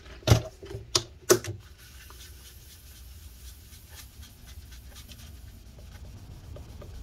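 Three sharp knocks in the first second and a half, then faint steady rubbing as a paper towel soaked in rubbing alcohol scrubs battery adhesive residue off the inside of a MacBook Pro's case.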